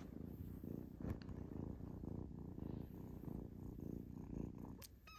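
Young black kitten purring steadily and rhythmically while being stroked, close to the microphone.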